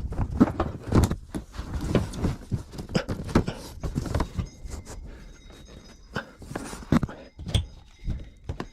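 Irregular knocks and thumps from handling and fitting panels inside a bus, busier in the first half. A faint steady high tone joins about halfway through.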